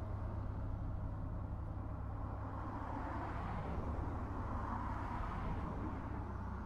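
Steady road traffic noise with a low rumble, swelling and fading as vehicles pass, loudest about halfway through.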